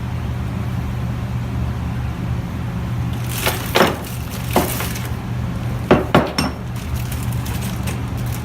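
Small metal engine parts and screws clinking and clattering as they are handled: a handful of short knocks around the middle, over a steady low hum.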